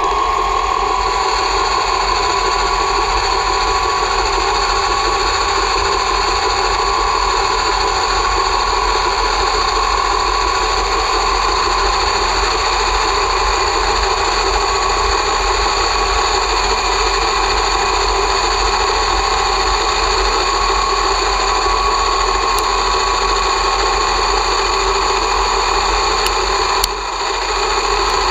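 1960s Swiss-made Lesto Scintilla lathe running steadily with a constant whine as it turns a high-tensile aluminium bar. The level dips briefly near the end.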